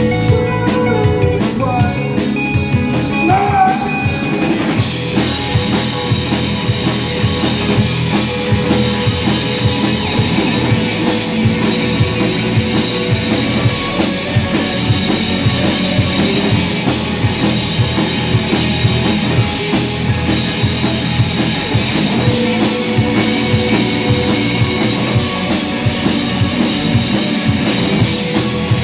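Live rock band playing a song, led by a drum kit with a steady beat.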